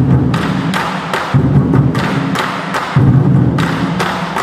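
Twenty-Four Seasons drum ensemble: a row of large Chinese barrel drums beaten with sticks in unison, a dense driving pattern with loud accented strikes about every second and a half.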